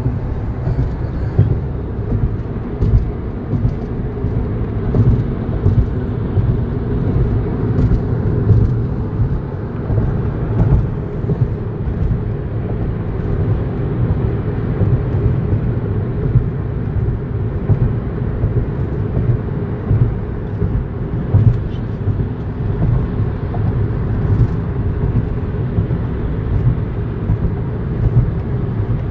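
Steady low rumble of a car driving, heard from inside its cabin: tyre and engine noise on the road.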